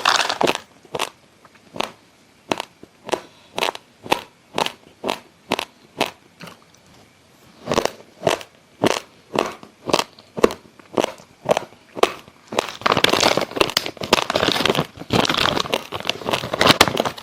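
Close-miked chewing of uncooked basmati rice grains: sharp crunches about twice a second, turning into dense, continuous crunching and crackling about twelve seconds in.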